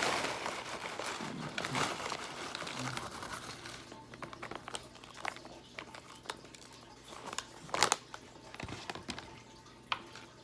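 Foil-lined chip bag crinkling as it is handled. The crinkling is dense for the first few seconds, then comes in scattered crackles, with one sharp louder crackle about eight seconds in.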